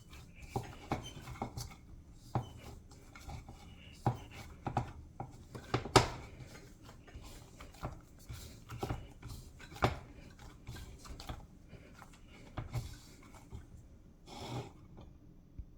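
Hands kneading soft dough in a bowl: irregular soft thumps and knocks, the sharpest about six seconds in.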